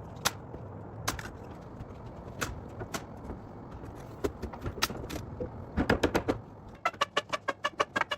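Scattered sharp knocks over a low steady rumble. About seven seconds in, a quick, even percussive beat of wood-block-like clicks begins, about four to five a second.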